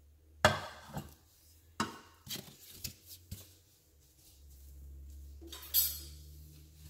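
Kitchenware being handled and set down on a countertop: a wooden spoon, a bamboo tortilla-warmer lid and dishes give a few sharp knocks and clinks, the loudest about half a second in, with a short rustle near the end and a low hum under the second half.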